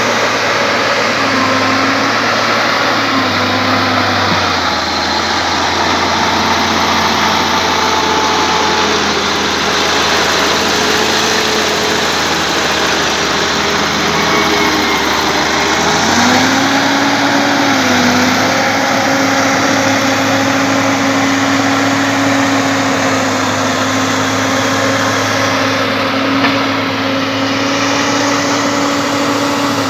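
Bulldozer's diesel engine running under load. Its note drops about four seconds in and rises again around sixteen seconds as the revs change.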